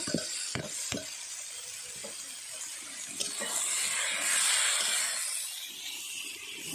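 Chopped cabbage hitting a hot iron kadai and sizzling as it is stirred and scraped with a spatula, with a few knocks in the first second as it is tipped in. The hiss swells about four seconds in.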